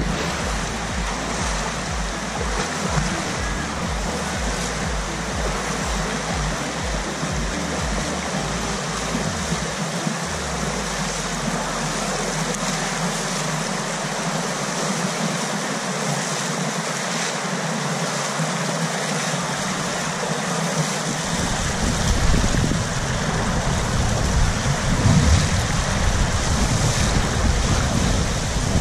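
Rushing floodwater of a swollen river running through rapids, a steady loud rush. It gets louder, with a rough low rumble, in the last several seconds as the wearer wades into the current.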